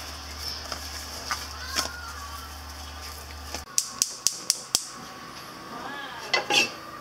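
Soft handling sounds of steak being rubbed in a steel bowl, then a gas range burner's spark igniter clicking five times in about a second, about four clicks a second, as the burner lights.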